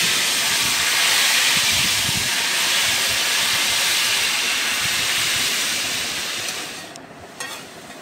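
Hot ghee with fried onions poured into a pot of haleem as a tempering (baghar), sizzling loudly in a steady hiss that fades out about seven seconds in.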